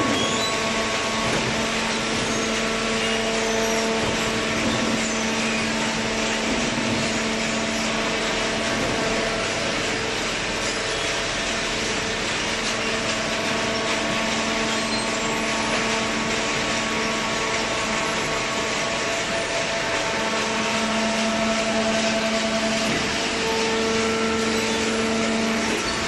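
Hydraulic cardboard baler and its belt feed conveyor running: a steady machine hum with a constant whine over a hiss.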